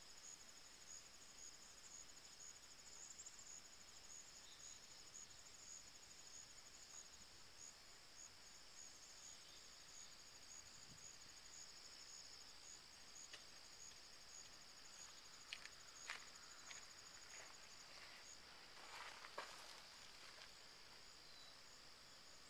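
Faint, steady chorus of crickets trilling at a high pitch. A few short faint clicks come toward the end.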